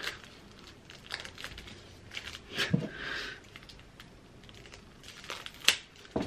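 Plastic wrapping crinkling and tearing as it is cut and peeled off a squash racket's grip with a small knife, with scattered ticks and one sharp click near the end.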